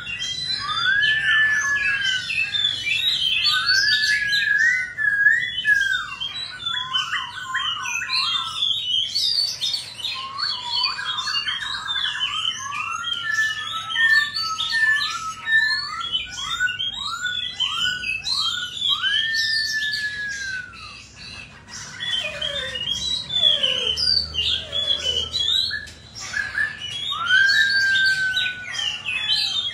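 Caged black-throated laughingthrush (khướu) singing a long, varied song of loud whistled phrases, rising and falling slurs and rapid runs of repeated notes, broken by short pauses about two-thirds of the way through.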